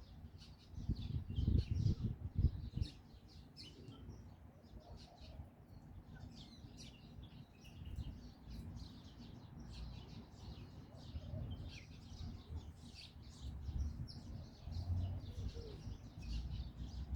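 Small birds chirping: many short, high chirps keep coming. A louder low rumble about one to three seconds in.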